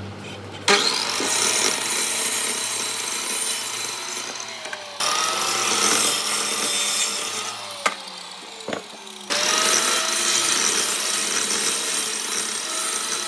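A power tool cutting or machining wood in three long passes, each starting abruptly, with a couple of sharp knocks in the pause between the second and third.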